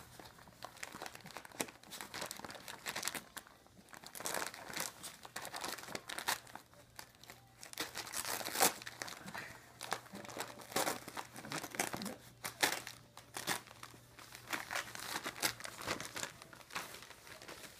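Christmas wrapping paper crinkling and tearing as a toy poodle noses and paws at a wrapped present: irregular rustles and rips throughout, the loudest a little under halfway in.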